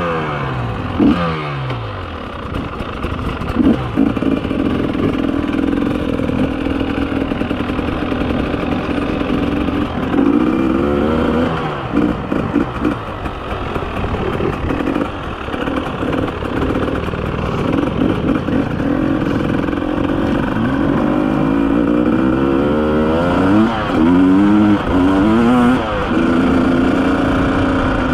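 300 cc two-stroke enduro motorcycle being ridden, its engine revving up and down with the throttle and gear changes, with a run of quick revs near the end.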